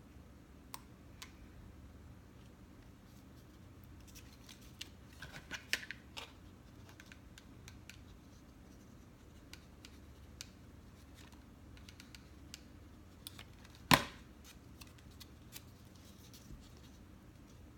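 Scattered small clicks and light paper rustling from card-stock tabs being folded and pressed down by hand, with a brief crinkling run about five seconds in and one sharp knock about fourteen seconds in, over a low steady hum.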